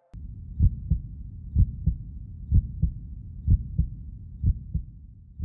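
Heartbeat sound effect: paired low thumps, lub-dub, about once a second over a steady low rumble.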